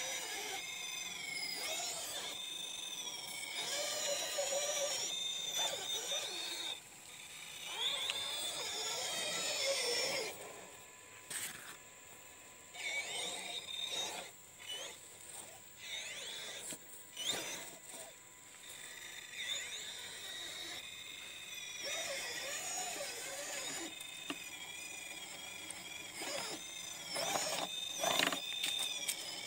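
RC rock crawler's electric motor and geared drivetrain whining as the truck crawls up rock, the pitch rising and falling with the throttle and stopping now and then. Scattered short clicks come in between.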